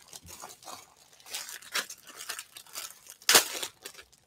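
Clear plastic bag crinkling and rustling as it is pulled open around a pair of leggings, with one sharp, louder crackle about three seconds in.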